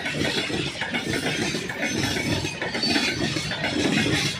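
Loaded freight wagons, open box wagons and flat wagons carrying steel coils, rolling past on steel wheels: a steady rumble of wheels on rail with irregular clatter.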